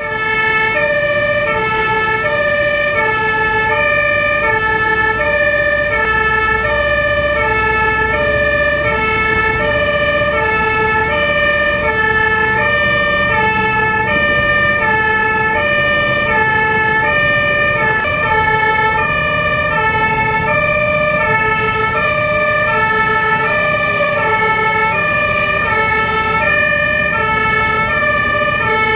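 Fire engine's two-tone siren alternating steadily between a low and a high note, each held about three quarters of a second, heard from inside the cab over the truck's engine and road noise while driving.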